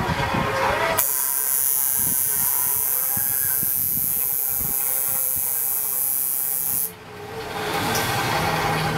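Coil tattoo machine running steadily under a loud, even high-pitched hiss. The hiss cuts out suddenly about seven seconds in and builds back over the next second.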